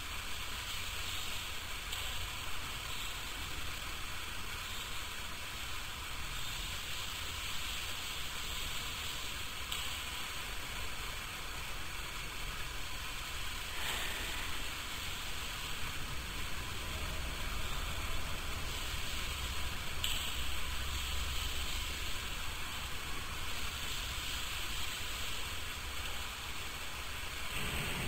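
Steady hiss over a constant low hum, with no distinct events.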